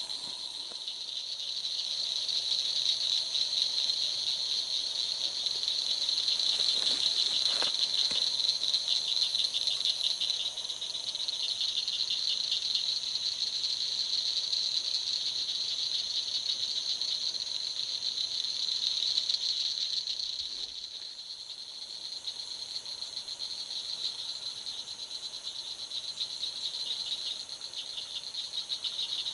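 A chorus of night insects trilling, a steady high-pitched pulsing trill that carries on without a break. A short rustle sounds about seven seconds in.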